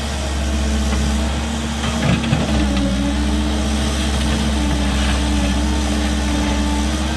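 Cat 310 excavator's diesel engine running steadily while digging, its pitch shifting slightly a little over two seconds in, with a brief clatter of knocks about two seconds in.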